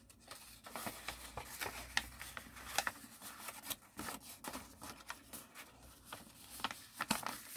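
A sheet of paper being handled and folded along pre-creased lines: irregular rustling with many sharp crackles as the folds are worked.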